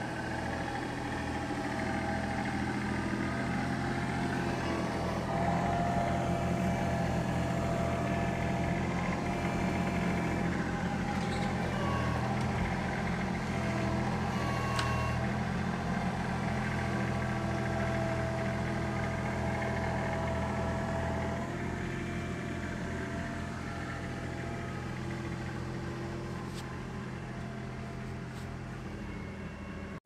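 Kubota compact tractor's diesel engine running steadily while it works its front loader. The sound grows gradually quieter over the last several seconds.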